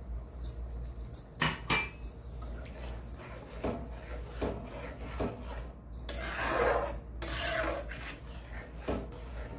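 A ladle and a spatula stirring and scraping through milky gravy in an aluminium kadai, with scattered light knocks against the pan. A longer rasping scrape comes a little past halfway.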